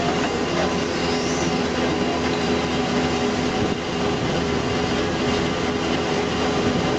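Heavy machinery running: a steady, dense mechanical rumble and rattle with a few faint steady tones.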